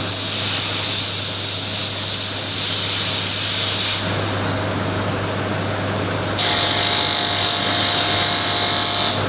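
Screws going into a sewing-machine servo motor's control box over a steady hum and hiss. About six seconds in, a powered screwdriver starts with a steady motor whine.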